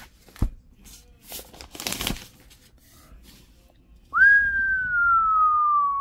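Packaging rustling and tearing, with a thump half a second in, then about four seconds in a person whistles one long note that slowly falls in pitch.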